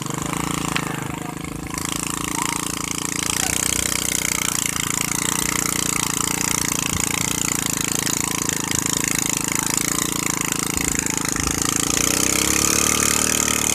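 Engine of a rice-hauling winch (mesin derek) running steadily, with the pitch rising somewhat near the end.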